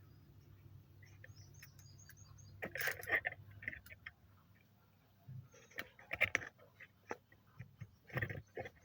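Birds chirping in short bursts in the background, with a few light clicks scattered through.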